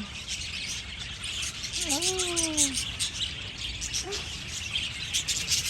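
A flock of budgerigars chattering, a dense run of short high chirps and warbles.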